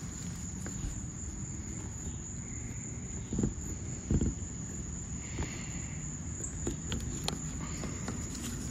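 Hands handling a kayak seat's aluminium frame and webbing strap on the inflatable hull: two soft knocks about three and four seconds in and a few small clicks, over a steady high-pitched whine and low rumble.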